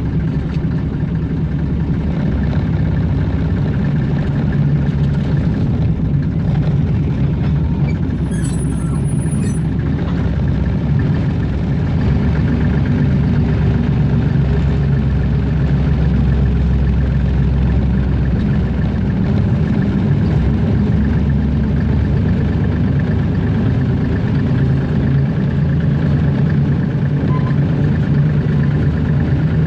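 Hunslet narrow-gauge diesel locomotive's engine running steadily as the train travels along the line, heard from the cab.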